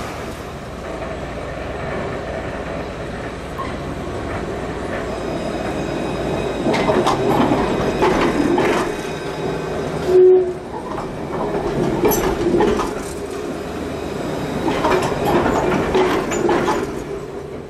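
Street tram running past close by, its wheels clacking over rail joints in two spells, about seven and fifteen seconds in, over a steady rumble. About ten seconds in comes a short, loud single tone.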